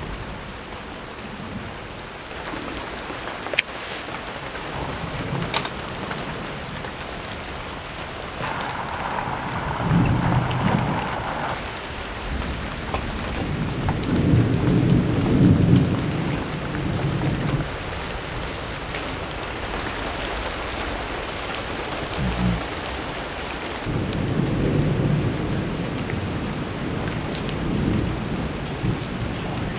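Thunderstorm: steady rain with thunder rumbling low several times, loudest about halfway through. A single sharp click comes a few seconds in.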